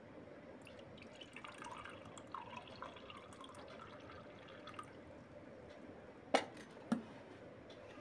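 Water poured from a plastic bottle into a glass, gurgling for about four seconds. Then come two sharp knocks about half a second apart.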